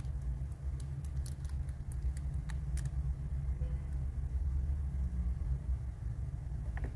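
Steady low background rumble, with a few faint light clicks from fingers handling the tiny battery and tape.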